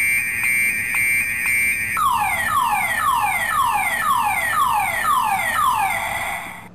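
Multi-zone car alarm siren cycling through its tones. First a steady high tone pulses about twice a second; about two seconds in it switches to a repeating falling whoop, about two a second, that cuts off suddenly near the end.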